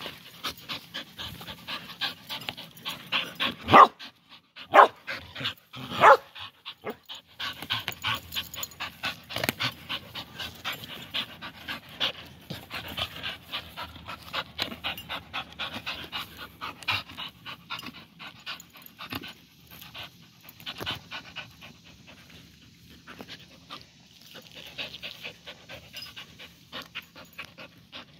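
Dog panting fast and hard from rough tug-of-war play, in a quick, steady rhythm of breaths. A few much louder sharp sounds stand out between about four and six seconds in.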